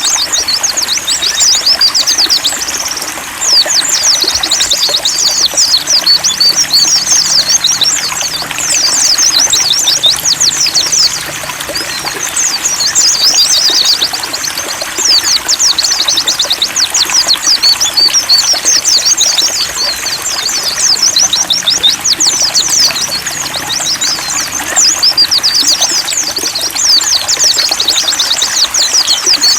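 A flock of white-eyes (pleci) singing over trickling water: dense, rapid, high-pitched twittering in overlapping runs with brief lulls, above a steady splashing trickle.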